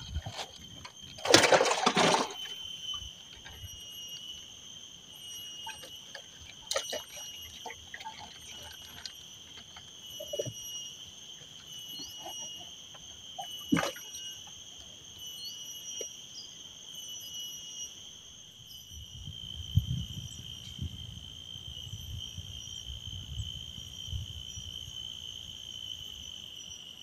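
Steady high-pitched insect trilling, a continuous chorus with a faint pulse. About a second in there is a brief loud noisy burst, a few sharp clicks follow later, and a low rumble comes in during the second half.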